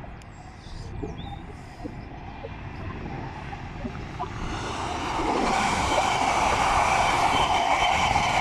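Multiple-unit passenger train approaching and passing close by: a rush of wheels on rail that swells from faint to loud about five seconds in, with a steady high whine over it.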